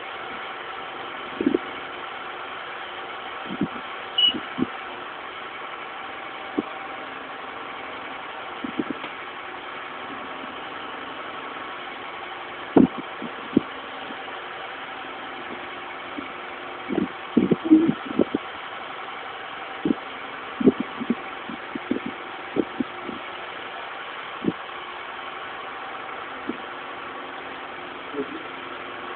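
A steady motor hum with many short, irregular knocks and clicks over it, a cluster of them about two thirds of the way through.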